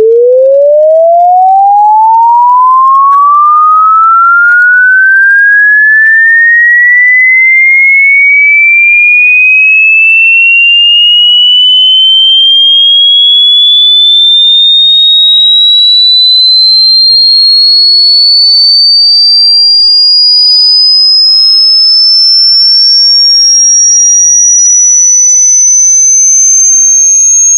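Electronic sine-wave sweep: a single pure tone rising steadily in pitch, from a low hum up to a high, thin whistle, climbing quickly at first and then more slowly. Much fainter tones glide alongside it.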